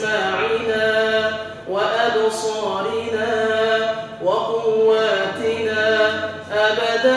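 An imam chanting a supplication (dua) in long, drawn-out melodic phrases, each held about two seconds with short breaks between.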